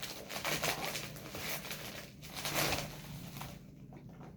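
Rustling and scraping of packaging being handled and opened, fading quieter near the end.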